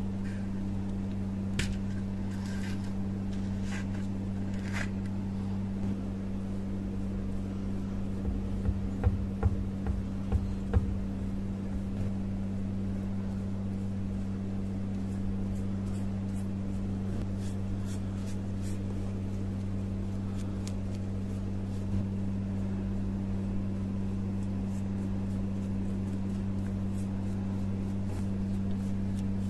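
A plastic bottle's screw cap clicking as it is twisted open, a short run of soft knocks, then faint scratchy brush strokes as liquid is painted onto a steel hammer head. Under it all runs a steady low electrical hum.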